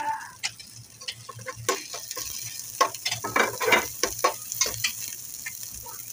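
Chopped cabbage and peas sizzling in hot oil with onions in a nonstick pot, stirred and scraped with a spatula. The sizzle grows stronger about two seconds in, and a run of quick scraping strokes comes in the middle.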